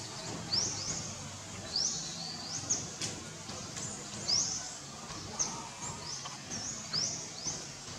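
A bird calling repeatedly in short, sharp high chirps that sweep upward, about one or two a second, over steady outdoor background noise.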